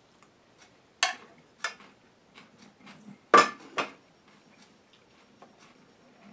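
Fork and plate clinking: a couple of sharp clinks about a second in, then a louder clatter as the plate is set down on the table between three and four seconds in, with light taps of cutlery in between.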